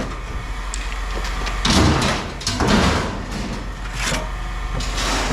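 Scrap metal being handled and sorted: four short scraping, clattering knocks over a steady low hum.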